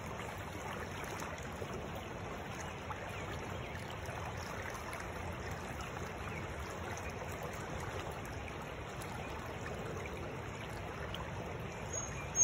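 Shallow stream riffle flowing steadily around a wading angler's legs, an even rushing of water. A brief high-pitched sound comes at the very end.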